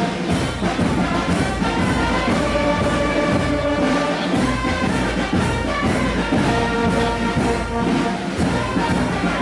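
Music led by brass instruments playing held notes that change throughout.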